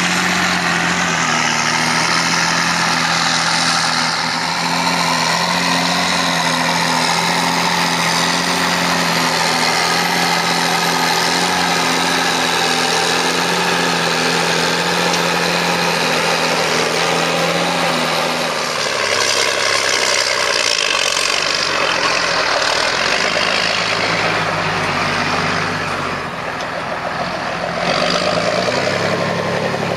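John Deere 8400 tractor's six-cylinder diesel engine running steadily under heavy load, dragging a seven-shank Alpego Cracker ripper deep through compacted soil; the engine is straining against the draft. The sound shifts about two-thirds of the way through as the view moves closer behind the tractor.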